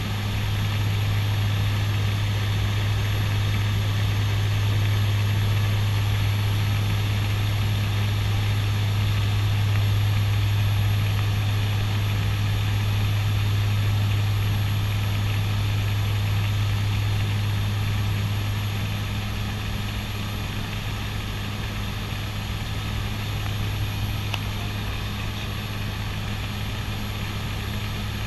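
CASA NC-212-200 Aviocar's twin Garrett TPE331 turboprops droning steadily, heard inside the cockpit. A deep, even propeller hum sits over a broad rush of engine and airflow noise, easing slightly about two-thirds of the way through.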